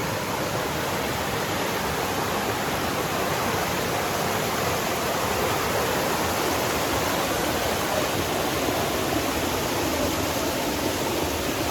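Mountain stream water rushing over rocks, a steady, even rush of water.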